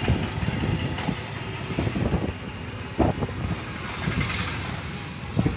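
Street traffic noise: a steady vehicle rumble with a few louder thumps, the strongest about three seconds in and again near the end.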